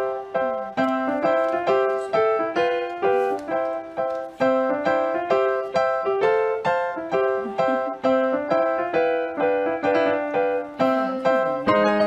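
Background music: a simple piano tune of single struck notes, about two or three a second, each note fading before the next.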